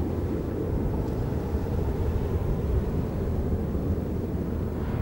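Jet engines of a Boeing 737-800 (CFM56-7B turbofans) at takeoff thrust, a steady low rumble as the airliner climbs away after departure.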